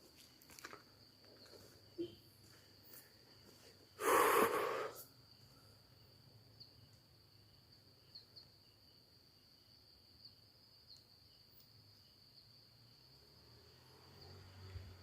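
Quiet night ambience with a faint, steady, high-pitched insect drone. About four seconds in, one loud breath-like exhale or sniff lasts about a second.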